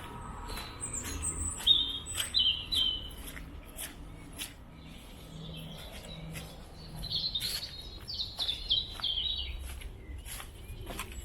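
Small birds singing: rows of short, high chirps about two seconds in and again from about seven to nine and a half seconds, over the steady crunch of footsteps.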